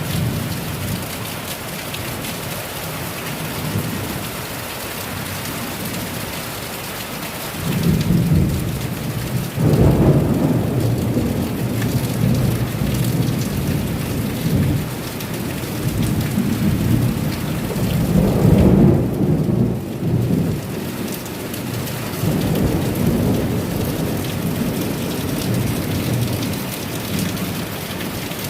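Heavy rain falling steadily, with thunder rumbling in low, repeated swells from about eight seconds in, loudest around the middle.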